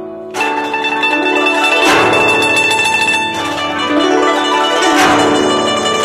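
Guzheng played fast and loud: after a fading note, a dense passage of rapidly plucked notes and sweeping glissandi begins a moment in, with strong accents about two seconds in and again near five seconds.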